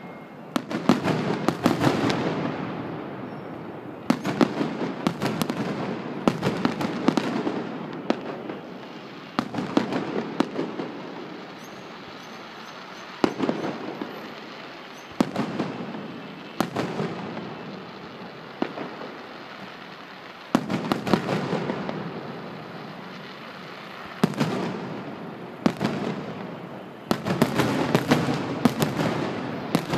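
Aerial firework shells bursting: sharp bangs, often several in quick succession, recurring every few seconds, each trailing off over a second or two.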